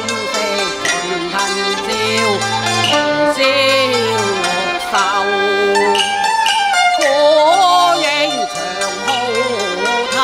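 Cantonese opera song accompaniment: a Chinese ensemble led by bowed strings plays a slow melodic passage with gliding, vibrato-laden notes.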